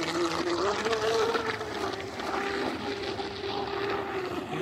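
Electric RC speed boat's brushless motor (1650 kV, on a 6S pack) whining as the boat runs across the water. The pitch climbs a little during the first second, then holds steady.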